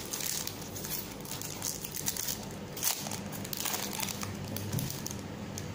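Foil wrapper of a Magic: The Gathering Iconic Masters booster pack crinkling as it is torn open and pulled apart by hand. The rustling is irregular, with a sharper crackle just before three seconds in.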